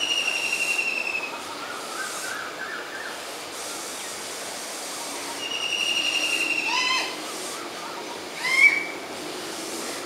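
Black-rumped flameback woodpecker calling: two rattling trills, each about a second and a half long and falling slightly in pitch, one at the start and one past the middle. A few short sharp notes follow, the loudest a single call a couple of seconds after the second trill.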